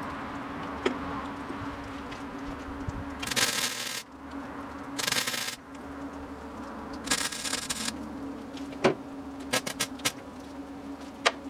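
MIG welder tacking sheet-metal patches into a steel truck tailgate: three short crackling bursts of weld, each under a second, then a run of quick sharp pops near the end, over a steady low hum. The welding stutters in short starts because the welder is acting up as its roll of wire runs near the end.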